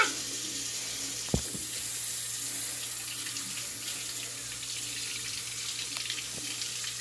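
Kitchen faucet running steadily into a sink, the stream splashing over tomatoes held under it by hand. A single thump sounds about a second in.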